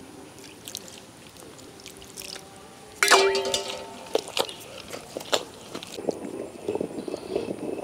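Hand-turned stone grinder working a wet batter of soaked rice, arrowroot and grated coconut: the stone pestle rolls and squelches in the stone mortar. About three seconds in, a sudden loud pitched sound lasts under a second.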